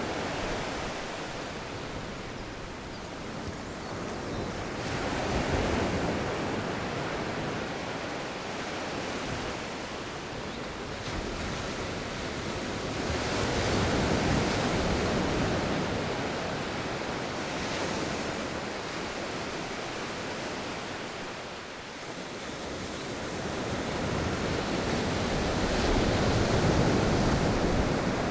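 Sea waves breaking on a beach, the surf swelling and fading in slow surges every several seconds, with wind.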